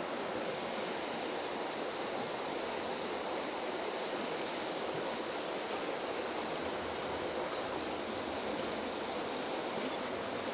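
Running stream water rushing steadily.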